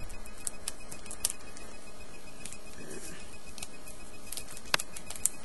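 Light scattered clicks and rustles of a trading card being handled and slipped back into its plastic holder, with two sharper clicks near the end.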